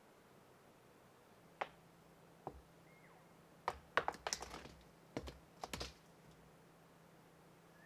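A scattered run of light, sharp clicks and snaps in two short clusters, over a faint steady hum.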